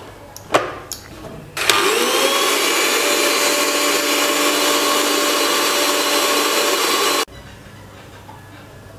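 Electric mixer grinder grinding cashew nuts with a little water into a paste. A knock comes first, then the motor starts about a second and a half in with a short rising whine, runs steadily for about five and a half seconds, and cuts off suddenly.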